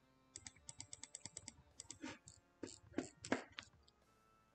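Computer keyboard keys clicking: a quick run of about ten keypresses in the first second and a half, then a few slower, louder ones.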